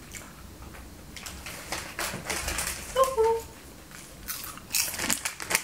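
Rustling, shuffling and light knocks of someone getting up and moving about, with a short two-note squeak about three seconds in.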